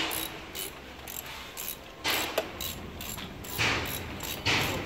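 Metal hand tools working on a car's engine bay: a run of irregular metallic clicks with a few longer scraping strokes.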